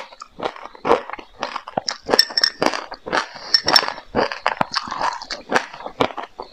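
Close-up chewing of raw white sesame seeds mixed with passionfruit pulp: repeated crisp crunches, about two a second. Around the middle, a metal spoon clinks against the glass bowl as it scoops more seeds.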